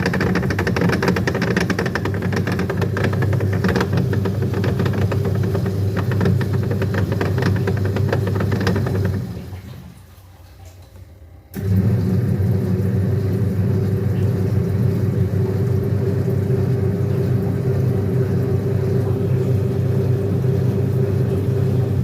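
Manual washing machine's wash motor and gearbox running with a steady hum and a rough rattling grind, the sound of a broken gearbox. It stops about nine seconds in and starts again sharply a couple of seconds later.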